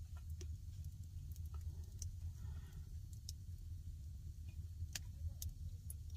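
A steady low rumble with a few faint, sharp ticks scattered through it.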